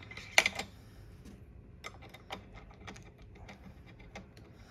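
Small metal clicks and taps as a replacement charging handle is fitted onto a Hi-Point carbine, with one sharper click about half a second in and lighter ticks scattered after it.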